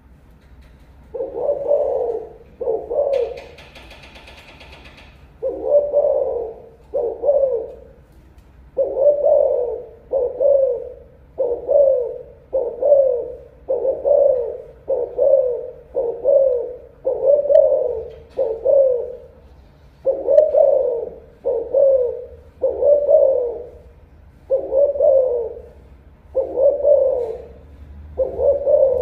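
Spotted dove cooing over and over: about twenty low coos, each under a second, first in two pairs and then in a steady run.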